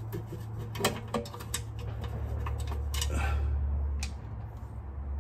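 Ratchet wrench clicking in short, uneven runs as the last bolt on a Turbo 400 transmission pan is backed out, over a steady low hum.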